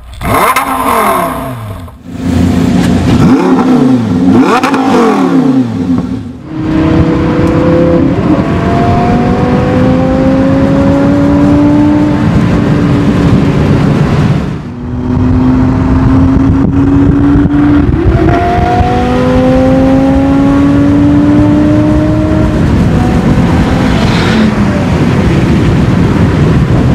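Audi R8 V10 Spyder's V10 with an aftermarket Akrapovič exhaust: a few sharp free revs at standstill, each rising and falling quickly. It then accelerates hard, its pitch climbing and dropping back at each upshift, over steady road and tyre noise.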